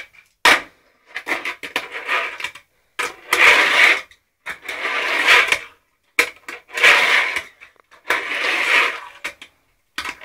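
Fingerboard wheels rolling across a small Tech Deck halfpipe ramp in runs of about a second, about six times with short pauses between. There are a few sharp clacks of the board striking the ramp.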